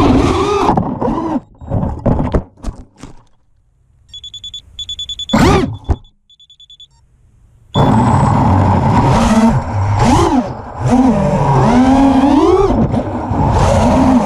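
FPV quadcopter motors whining, their pitch rising and falling with the throttle. The motors cut out about a second and a half in, and a few seconds of near silence follow with short high beeps and one brief burst. The motors spin back up suddenly a little before the halfway point and keep whining, rising and falling.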